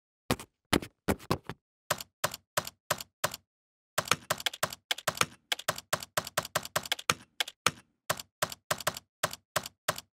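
Typing sound effect: single keystrokes at about three a second, a short pause a little before the middle, then a faster, denser run of keystrokes.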